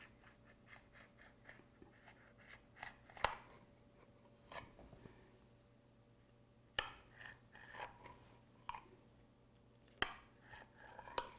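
A zucchini potato bake being cut into a piece: faint crunching strokes through the baked crust, about three a second at first, then a few sharper clicks.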